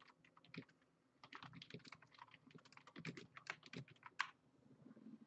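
Faint typing on a computer keyboard: a run of quick, irregular keystrokes starting about a second in and stopping about four seconds in.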